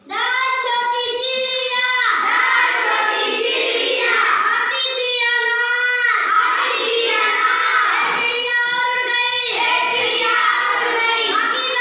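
A child's voice singing, with long held notes.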